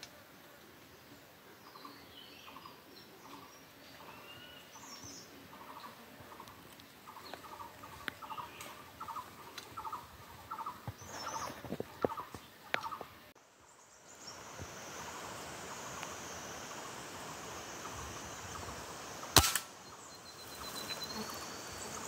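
Small birds chirping with a faint call repeated about twice a second, then a single sharp air rifle shot, the loudest sound, near the end.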